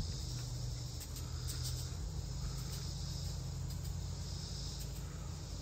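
Rub being shaken from a plastic seasoning shaker onto a rack of ribs, a few faint light rattles and patters of granules. Behind it, a steady high insect trill and a steady low hum.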